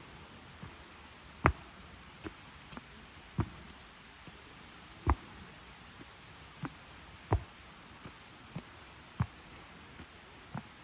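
Footsteps of a walker in rubber rain boots: a steady pace of heavier thuds about every two seconds with lighter clicks and scuffs between them.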